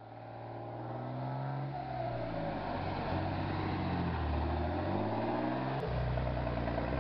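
Heavy cargo truck's diesel engine pulling through deep, sticky red mud, its pitch rising and falling as the revs change.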